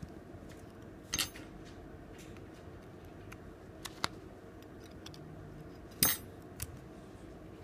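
Scattered sharp clicks and light clinks from small metal hand tools handled during smartphone disassembly, over a low steady room hum. The two loudest clicks come about a second in and about six seconds in, with smaller ones in between.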